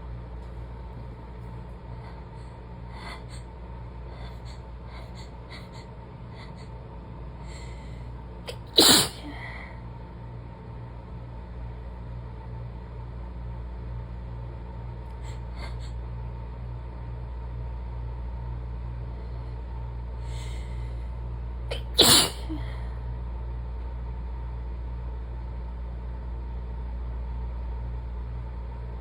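A person sneezing twice, about thirteen seconds apart, each sneeze loud and sudden, as part of a sneezing fit. Faint short breaths come before each sneeze.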